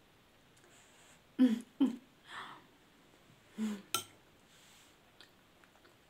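Eating sounds at a table: a few short mouth and breath sounds, a breathy puff about two seconds in, and a metal spoon clicking sharply against a ceramic plate about four seconds in.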